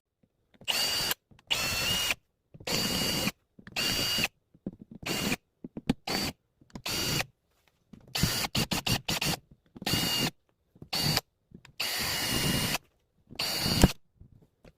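Power drill running in about a dozen short bursts, each under a second, with a steady motor whine in each and abrupt stops between them.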